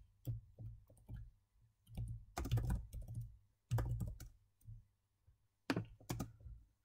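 Computer keyboard being typed on, with keystrokes clicking in four short bursts separated by brief pauses.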